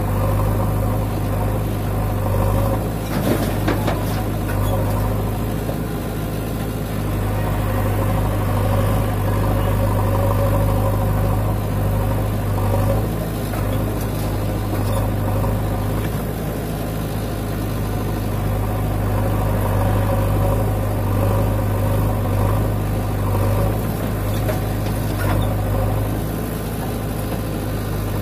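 JCB 3DX backhoe loader's diesel engine running steadily while loading soil, its note swelling and dipping a little as the loader arm works. A few sharp knocks sound about three to four seconds in.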